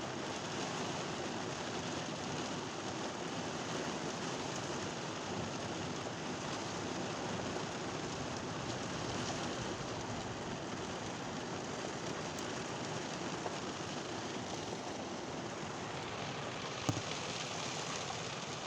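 Steady heavy thunderstorm rain falling in an even hiss, with one brief sharp click near the end.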